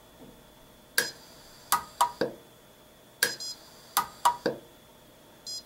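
Pulse arc micro-welder firing at a low power setting as its electrode touches fine thermocouple wires: a quick run of about eight sharp snapping clicks within about three and a half seconds, with a short electronic beep near the end. A faint, steady, high-pitched whine sits under it all.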